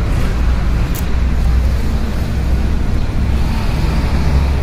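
Steady low rumble with an even hiss over it: outdoor background noise.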